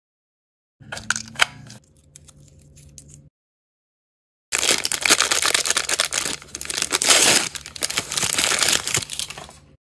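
Light clicks and taps as a tiny plastic toy accessory is handled between fingertips, with one sharper click among them. After a gap, loud crinkling and tearing for about five seconds as a crinkly L.O.L. Surprise blind-bag wrapper is pulled open around a mini doll.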